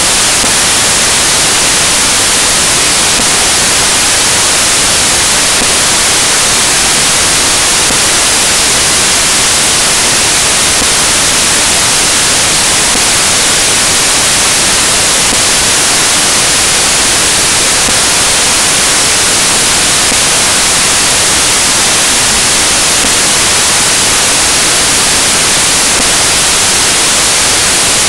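Loud, steady static hiss like white noise, unchanging throughout, with nothing else heard through it.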